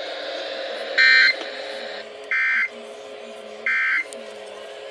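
EAS end-of-message signal from a NOAA Weather Radio broadcast: three short bursts of SAME digital data tones, a harsh warbling buzz, about 1.3 s apart, the first one loudest. They mark the end of the emergency alert and sit over the radio's steady background hiss.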